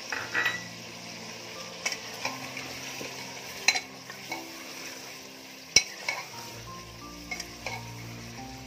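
Mutton frying in hot oil in an aluminium pressure cooker, sizzling steadily while a steel ladle stirs it and clinks sharply against the pot several times. The meat is being browned (bhuna) with its spice paste.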